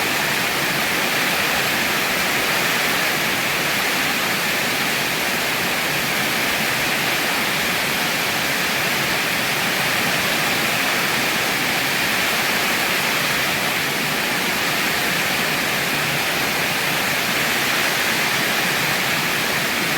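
Heavy rain falling in a steady, unbroken hiss that does not rise or fall, with no thunder.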